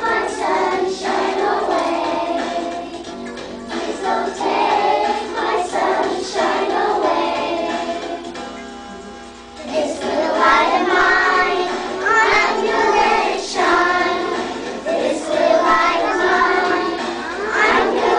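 A group of young children singing a song together. The singing drops away for a second or so just past the middle, then comes back in loud.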